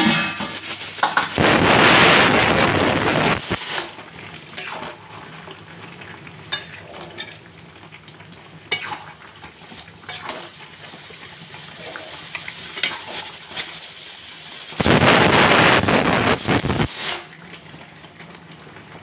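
Chicken kosha sizzling in a kadai on a gas flame while a metal spatula stirs and scrapes it, with scattered clicks of the spatula on the pan. There are two louder stretches of noise, each about two seconds long: one about a second and a half in and one about fifteen seconds in.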